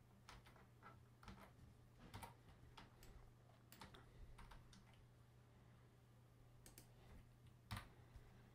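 Near silence with faint, scattered clicks of a computer keyboard and mouse being used.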